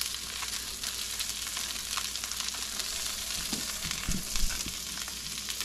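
Fiddleheads sizzling in garlic butter and peanut oil in a frying pan, being stirred with a spatula, with a steady crackle and small clicks. A dull knock comes about four seconds in.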